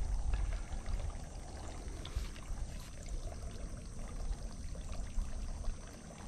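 Wind rumbling on the microphone, a steady low buffeting with faint hiss above it.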